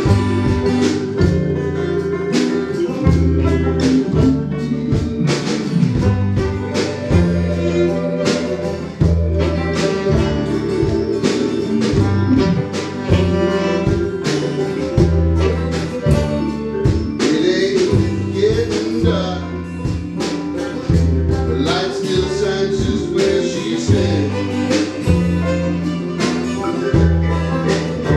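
A small band playing live in a room: a bass line moving every second or so under a steady drum beat, with keyboard and other instruments on top. Cymbals swell in the middle and again near the end.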